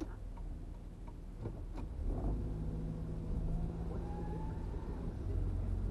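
Low, steady rumble of a car's engine and tyres, heard from inside the cabin as it drives slowly, with a steady hum joining in the middle.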